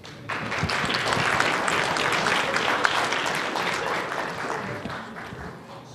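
Audience applauding: clapping starts a moment in, holds steady through the middle and dies away near the end.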